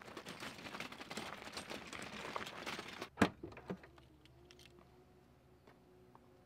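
Footsteps and a pulled wagon crunching over gravel. About three seconds in, a sharp click, then the Audi Q5's electric power tailgate motor hums steadily as the tailgate lifts open.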